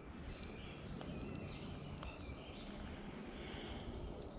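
Quiet outdoor background noise with a few faint, short bird chirps.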